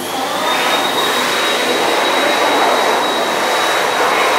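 Electric hand dryer running: a loud steady rush of air with one high whine that rises a little as the motor comes up to speed at the start, then holds on one pitch.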